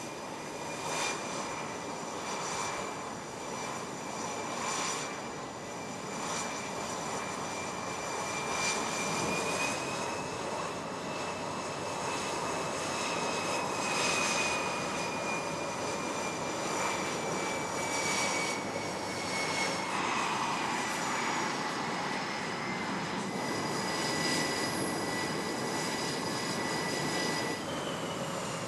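Jet engines of an F/A-18 fighter running on an aircraft carrier's flight deck: a steady rushing noise under a high whine that rises a little about a third of the way in, then slowly sinks.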